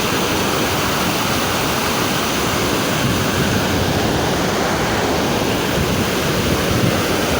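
Iguaçu Falls: the steady, loud roar of a huge waterfall, a constant rush of falling water.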